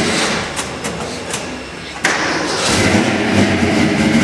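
1964 Mercury Marauder's 428 big-block Ford FE V8 being started: starter cranking with a few sharp knocks, then the engine catches about two seconds in with a loud burst and settles into steady running.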